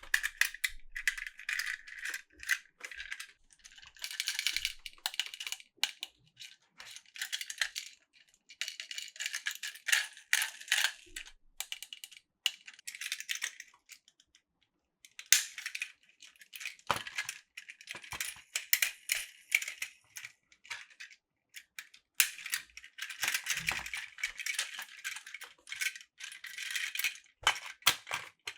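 Small hard plastic toy parts clicking and rattling in irregular bursts, with a short pause about halfway through: Plarail toy train and track pieces being handled.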